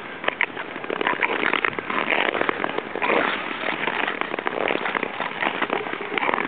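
Long-distance (Nordic tour) ice skates gliding and scraping over rough natural lake ice, a dense, steady crackle of small clicks.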